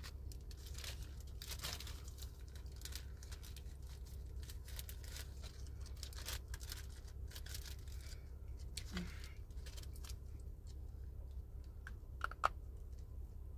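Clear plastic zipper bag crinkling irregularly as it is handled and opened, then a sharp crunch near the end as a hard chalk-like piece from it is bitten. A steady low hum runs underneath.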